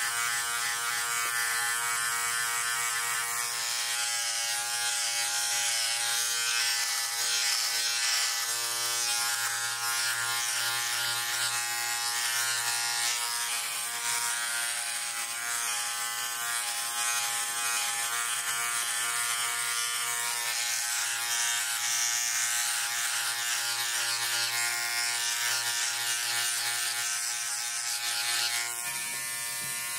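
Philips OneBlade hybrid electric trimmer-shaver running with a steady buzz as it is drawn over stubble on the jaw and neck. It switches off near the end.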